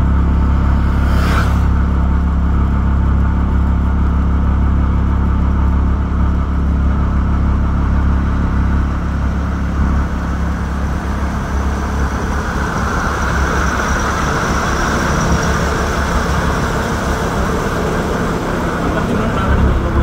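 Steady low rumble of engine and tyre noise heard from inside a vehicle driving along a paved road. A higher rushing noise joins about twelve seconds in.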